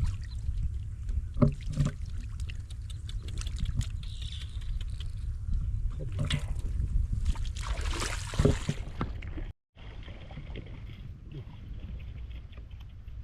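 Water sloshing and splashing with knocks and heavy low rumble, as from wading and handling in a flooded rice field. The sound cuts out completely for a moment about two-thirds of the way through, then continues as a steadier watery hiss.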